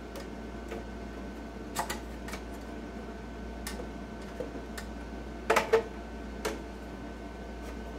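Scattered light metal clicks and clinks as a metal plate and its nuts are fitted back by hand onto a slot machine's coin hopper, the loudest a quick pair of clicks about five and a half seconds in. A steady low hum runs underneath.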